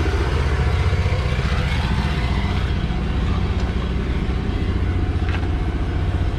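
An engine running steadily, a continuous low rumble.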